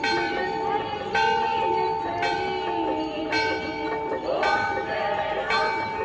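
Temple bell struck at a steady pace, about once a second, each stroke ringing on into the next, with people's voices behind it.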